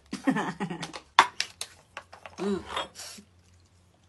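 Short bursts of a person's voice without clear words, with a few sharp clicks or taps about a second in.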